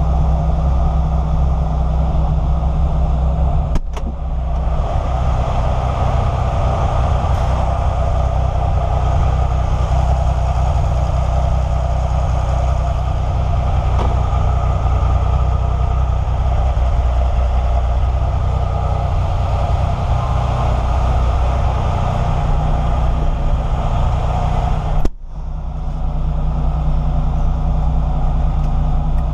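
Porsche 993's rebuilt 3.8-litre air-cooled flat-six idling steadily, with two sudden brief drops in level, about four seconds in and again near the end.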